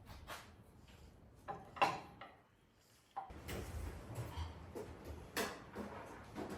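Scattered light clicks and knocks of parts being handled during engine-mount work, with a brief lull about two and a half seconds in.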